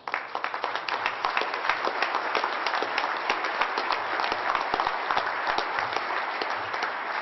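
Audience applauding: many people clapping together, breaking out suddenly and holding steady and dense.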